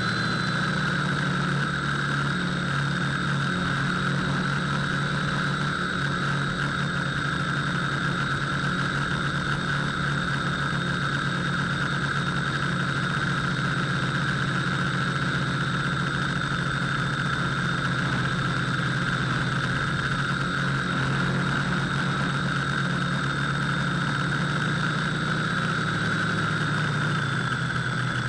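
An FPV model aircraft's electric motor and propellers whine steadily in flight, heard through the onboard camera. A thin high whine sits over a low hum and dips slightly in pitch near the end.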